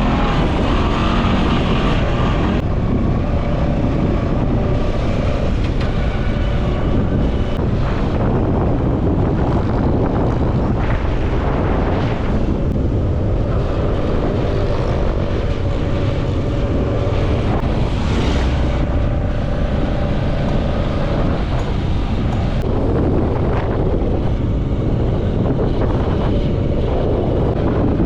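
Quad bike engine running while riding, its pitch shifting up and down with the throttle, under heavy wind buffeting on the microphone.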